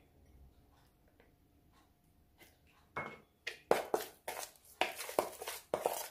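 Near silence for about three seconds, then a metal spoon scraping and clacking against a bowl while stirring a thick chilli-powder paste, about three strokes a second.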